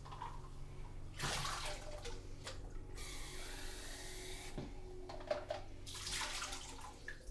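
Bathroom tap running in three short spells, water splashing as a small toy container is rinsed out.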